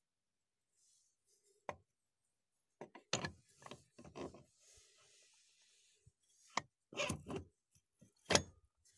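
Metal engine parts knocking and scraping as a flywheel rotor is fitted and turned by hand on an ATV engine's crankshaft: a string of short knocks and rubs with gaps of quiet between, the loudest near the end.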